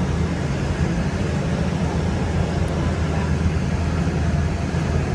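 Steady running noise of a light rail car in motion, heard from inside the car: an even low hum and rumble of the train travelling along the track.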